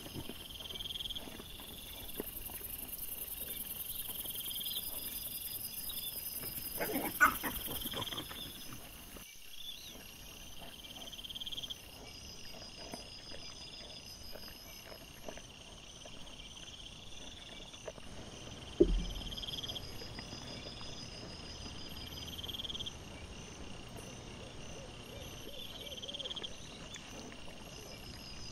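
Night insects, crickets, chirping in a steady repeating rhythm, with a few rustles and knocks from wild boar and piglets foraging on leaf litter: a cluster of sharp clicks about 7 seconds in and a single loud thump about 19 seconds in.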